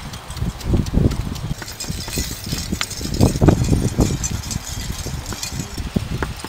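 Stone pestle pounding red chilies in a stone mortar: a run of dull, uneven thuds, loudest about halfway through and thinning out near the end.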